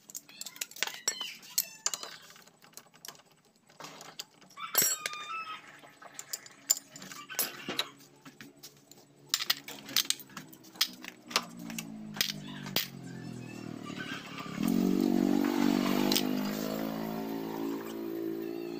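Metal clutch parts of a Yamaha Jupiter Z engine clinking and clicking as they are handled and lifted out of the open clutch housing. Over the last few seconds an engine rises in pitch, then runs steadily and louder than the clinking.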